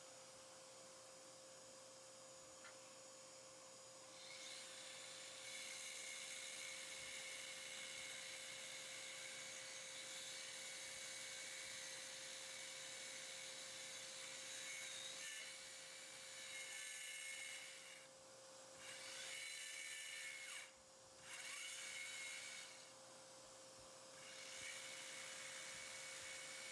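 Handheld power saw cutting through a luxury vinyl floor plank, a faint high whine that starts about four seconds in and stops briefly three times in the second half, over the steady hum of a vacuum held at the cut.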